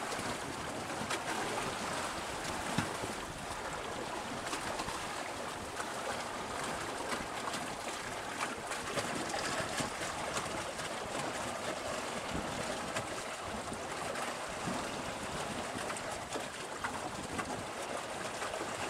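Steady rush of water streaming past the hull of a small sailboat heeled under sail, with small splashes.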